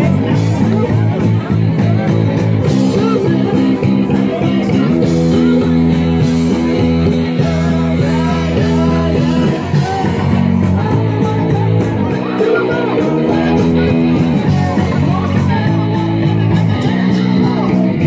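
Live rock band playing through a PA, with guitars and a singer.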